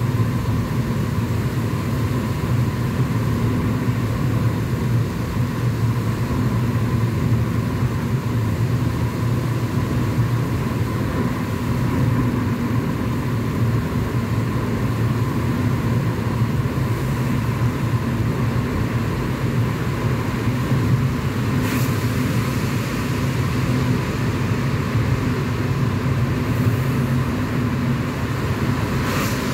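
Steady road and engine noise of a car driving through a road tunnel, heard from inside the cabin as a low, even hum. Near the end there is a brief swish as an oncoming car passes.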